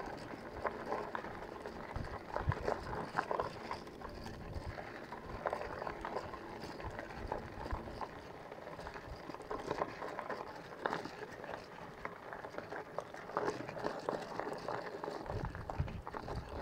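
Bicycle tyres rolling over a loose gravel road, with a steady crunching and irregular small knocks and rattles from the bike.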